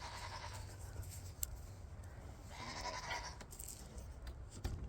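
Goats bleating faintly, twice: once at the start and again about three seconds in.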